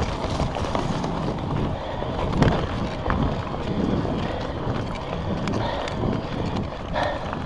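Wind buffeting the camera microphone and tyre rumble from an electric mountain bike riding fast over a dirt forest trail, with scattered knocks and rattles from the bike over bumps, the loudest about two and a half seconds in.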